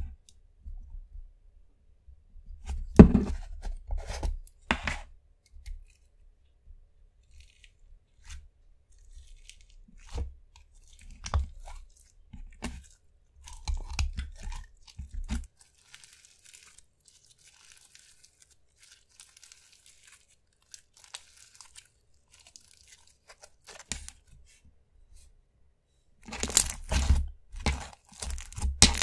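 A plastic slime tub is handled and opened, giving scattered knocks and clicks, the loudest about three seconds in. After a quiet stretch, clear slime is pressed and squished on a table, making dense crackling clicks and pops in the last few seconds.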